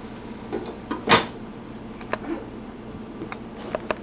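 Cookware handled at the stove: a few short clicks and knocks of a pan lid and utensil against a skillet, with one louder clatter about a second in, over a steady low hum.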